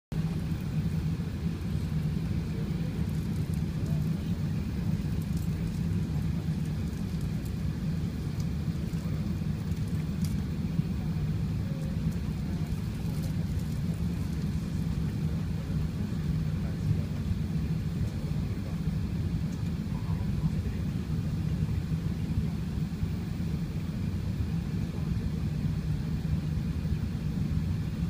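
Airbus A380 cabin noise in flight: a steady low rumble with a constant hum from the engines and airflow.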